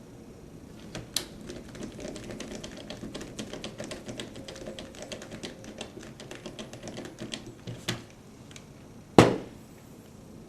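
Quick run of small clicks and rattles from a new battery being handled and slid into place in an alarm panel, with one loud knock near the end.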